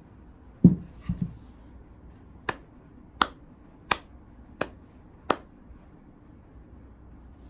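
A round walnut-and-resin sign is set down on a padded workbench with a dull thump and two lighter knocks. Then come five sharp hand claps, slow and evenly spaced, a little under a second apart.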